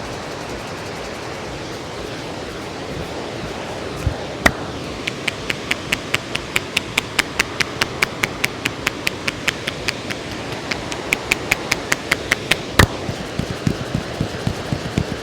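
Hands tapping rapidly on a head during a head massage, about five crisp taps a second for several seconds, with a sharper single slap before and after the run and duller, softer pats near the end. A river rushes steadily underneath.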